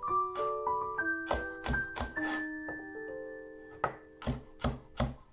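Chef's knife chopping red bell pepper on a wooden cutting board: a run of sharp knocks of the blade against the board at an uneven pace, with a short pause midway. Gentle piano music plays throughout.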